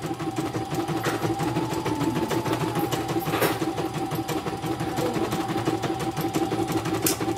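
CNY portable computerized embroidery machine running steadily. Its needle stitches in fast, even strokes over a steady motor whine.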